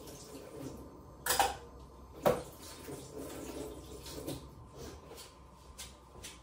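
Washing up by hand at a kitchen sink: water splashing and dishes clattering, with two loud knocks about a second and two seconds in.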